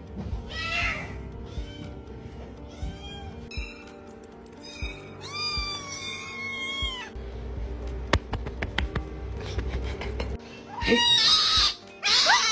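A cat meowing several times over background music, with one long drawn-out meow about midway and louder calls near the end.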